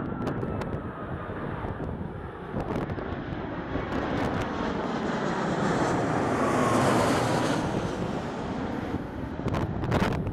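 Airbus A330 jet engines on final approach, passing low overhead with the landing gear down. The engine noise swells to its loudest about seven seconds in, with a whine that slides down in pitch as it goes over. Gusts of wind buffet the microphone near the end.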